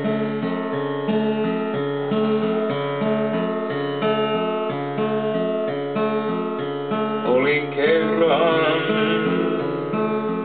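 Acoustic guitar strumming a steady, repeating chord pattern. A voice starts singing about seven seconds in.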